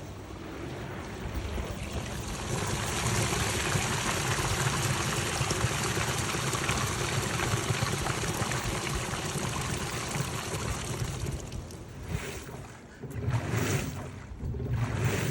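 Water rushing steadily into the tub of an LG TurboDrum top-loading washing machine. Near the end it gives way to three or four short surges of water sloshing.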